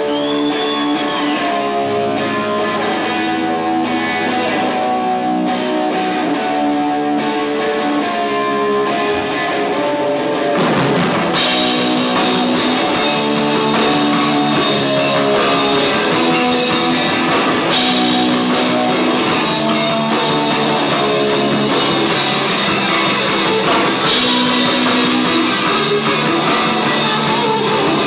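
Live rock band playing, with electric guitars and a drum kit. Guitar chords ring out alone at first, then the sound grows fuller and a little louder about eleven seconds in as the drums and cymbals come in.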